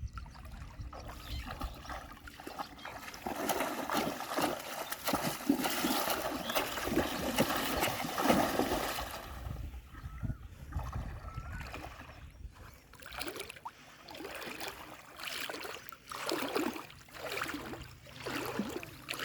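Water splashing and sloshing in shallow muddy river water, dense and continuous through the middle, then breaking into separate splashes near the end.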